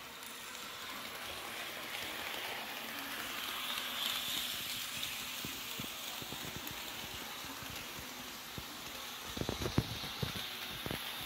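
Two H0-scale model electric locomotives, a Märklin BR 103 among them, running one behind the other on a circle of track: a steady whirring, rattling hiss of motors and wheels on the rails. It swells a little about four seconds in, and a few short clicks come near the end.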